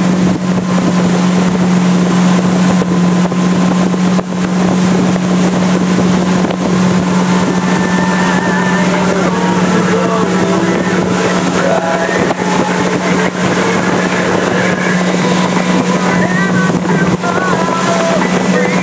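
Tow boat's engine running at a steady pulling speed, a constant drone holding one pitch, with wind noise on the microphone.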